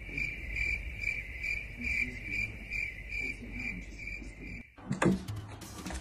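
A steady, high-pitched trill like an insect's, pulsing a little over twice a second, that cuts off abruptly near the end. It is followed by a few loud, sharp knocks.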